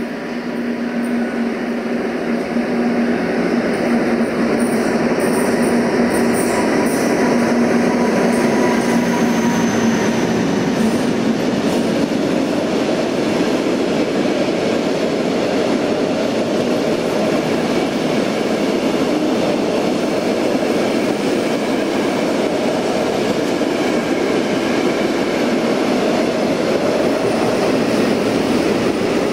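Freight train rolling past: a loud, steady rumble and rattle of wagons on the rails that swells over the first few seconds, with a low steady hum for about the first ten seconds.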